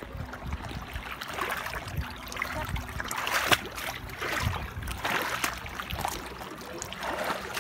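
Small waves washing and lapping against coral-limestone rocks in shallow water, the wash swelling and falling back about every two seconds.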